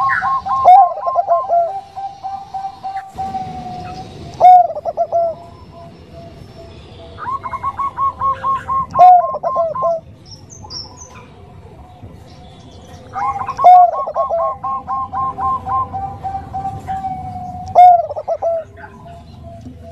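Bangkok-type zebra dove (perkutut) cooing: three phrases about six seconds apart, each a quick run of short notes ending in drawn-out coos.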